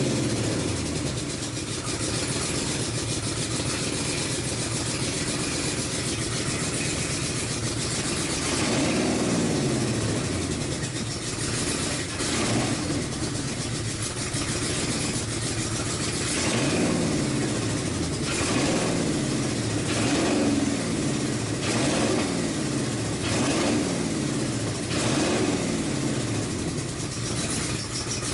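2005 Chrysler 300C's 5.7-litre Hemi V8 running at idle. From about eight seconds in it is revved again and again, the pitch falling back to idle after each rev. The engine has just been reassembled after an intake gasket that had caught out of place was refitted, and the owner takes that gasket for the cause of its vacuum leak.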